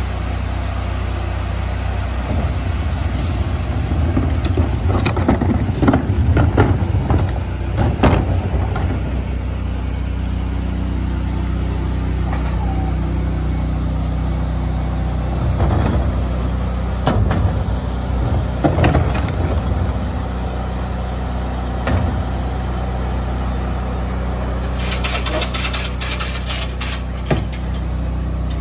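The engine-driven hot-water wash system of a bin-washing trailer running steadily with a low hum. Plastic wheeled trash bins knock and clatter twice as they are rolled into place on the lift arms. A hiss starts near the end.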